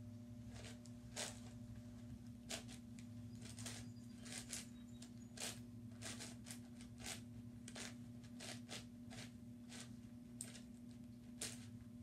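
A YuXin 9x9x9 puzzle cube's plastic layers clicking as they are turned by hand, in short irregular clicks about one to two a second, over a low steady hum.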